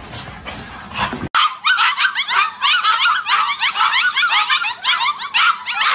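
A litter of young puppies yipping and whining all at once in a dense, overlapping, high-pitched chorus that starts abruptly about a second in.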